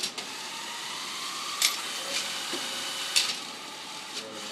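FRC robot's ratchet climbing mechanism working up a metal bar: a steady motor whine and hiss with two sharp metallic clicks about a second and a half apart as it climbs.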